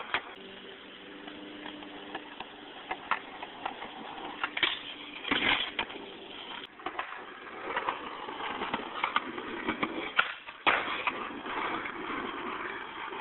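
Skateboard wheels rolling on pavement, with several sharp clacks of the board popping and landing, the loudest about five and a half seconds in and again near eleven seconds in.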